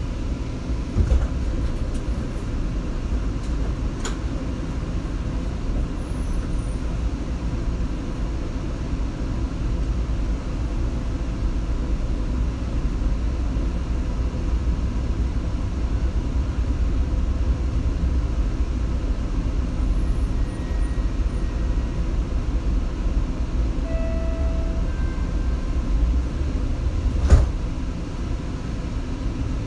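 Seattle Link light rail train running between stations, heard from inside the car: a steady low rumble of wheels on rail. A single sharp knock near the end is the loudest moment, and a fainter one comes about four seconds in.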